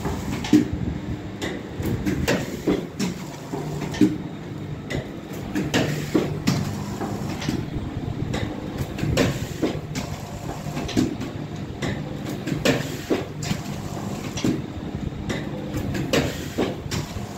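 Pouch packing machine running: a steady motor hum with a sharp clack about once a second as the sealing jaws close and cut off each sachet.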